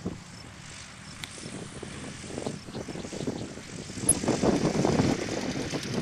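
UltraVair 35 hp twin-cylinder four-stroke engine, made from a third of a Corvair engine, driving the propeller of a Mini-Max ultralight as it comes in low and rolls along the runway. It gets louder about four seconds in as the plane comes close.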